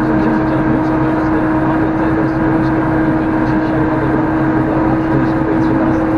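Valtra tractor's engine running steadily under load, heard from inside the cab while driving across a field, with a constant whine held over the drone.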